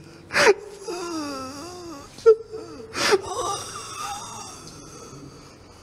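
A man wailing and sobbing: a sharp gasp about half a second in and another about three seconds in, each followed by a long, wavering, high-pitched cry that fades away.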